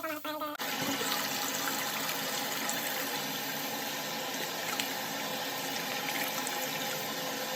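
Tap water running steadily into a sink, starting about half a second in, as a freshly dyed wig is washed under it.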